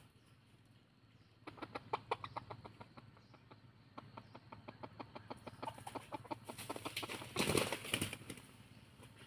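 Wild-junglefowl-cross rooster giving a long, rapid run of short clucks, about eight a second, followed by a short, louder rustle near the end.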